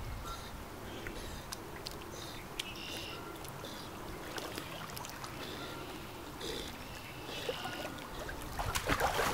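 Retriever dog swimming with a training bumper in its mouth, water lapping and swishing around it, then louder splashing near the end as it reaches the bank and wades out. Repeated high chirps sound in the background.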